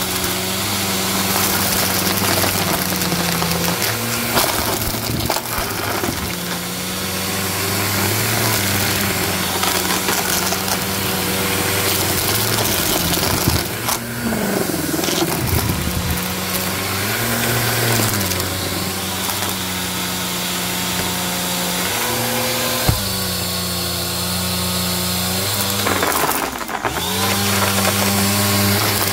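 Bissell Helix upright vacuum running on carpet, its motor humming steadily while debris crackles and crunches up through the brush roll. The motor's pitch dips briefly twice, about halfway through and again near the end.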